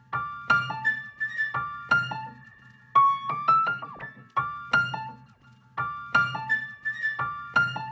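Background music: a piano playing a light melody of short, separate notes, each struck and fading away.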